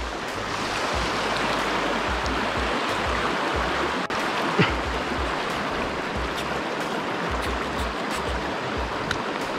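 Fast-flowing mountain river rushing steadily as a continuous even noise, with irregular low rumbles on the microphone.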